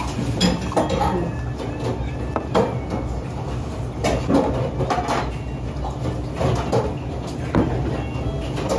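Restaurant clatter: scattered knocks and clinks of dishes and a beer glass set down on the counter, over a steady low hum, with beer poured from a bottle into the glass near the end.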